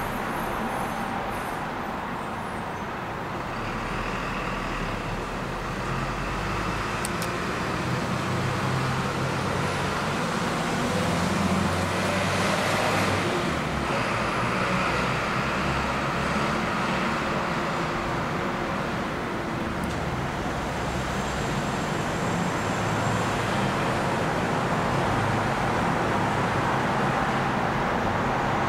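Steady roar of a Boeing 787-9 Dreamliner's jet engines mixed with road traffic, swelling briefly a little under halfway through.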